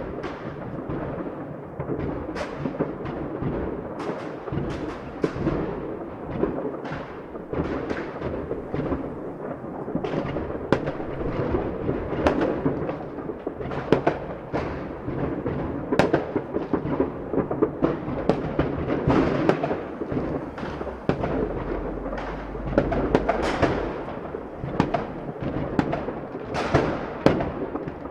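A fireworks display going off continuously: a rapid, irregular run of bangs and crackling bursts, several a second, over a constant rumbling din of overlapping explosions.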